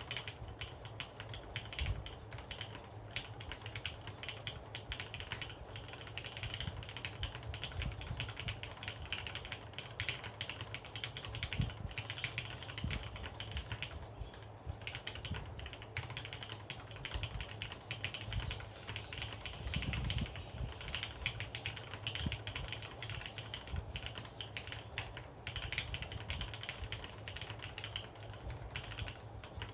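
Steady typing on a J-02 mechanical keyboard with Cherry MX Hyperglide Black linear switches (65 g springs), a carbon fibre plate and GMK keycaps, the board sitting without a deskmat. Fast, continuous key strokes with a short lull about halfway through.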